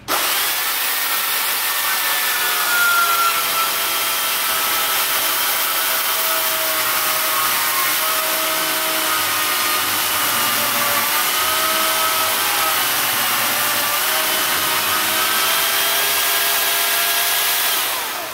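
Makita corded electric chainsaw cutting into a block of wood: a steady motor whine over dense cutting noise, its pitch dipping slightly now and then as the chain bites under load. It starts suddenly and cuts off near the end.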